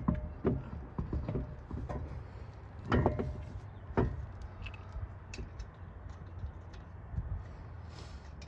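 A series of separate clunks and knocks from handling a car wheel and its parts at the hub, the loudest about three and four seconds in, over a low steady rumble.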